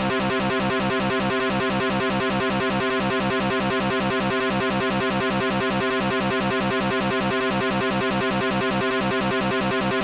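Many Japanese railroad crossing alarms ringing together: a dense, rapid, evenly repeating 'kan-kan' of electronic bell tones at several pitches, steady and unchanging.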